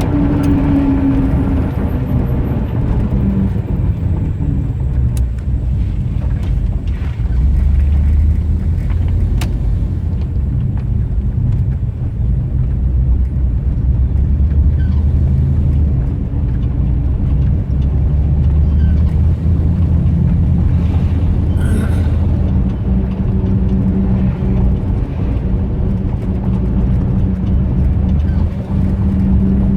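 1989 Dodge Ramcharger's engine running, its low note shifting up and down in pitch a few times.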